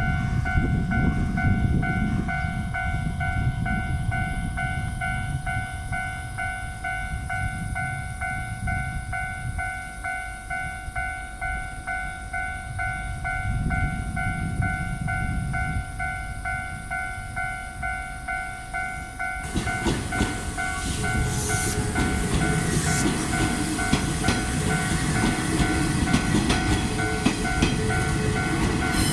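Japanese railway level-crossing alarm ringing its steady, repeating electronic bell tone. From about two-thirds of the way through, an electric train runs over the crossing, its wheels rumbling and clicking over the rail joints under the bell.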